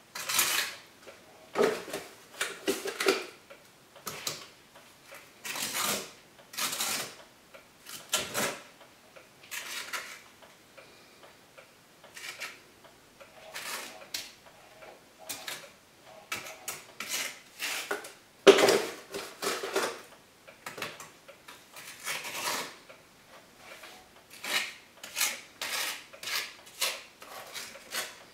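Short, irregular scrapes and taps, about one a second, as wet Quickrete mortar is packed and smoothed into the gaps around a stove-pipe opening in a brick chimney. The loudest comes about two-thirds of the way through.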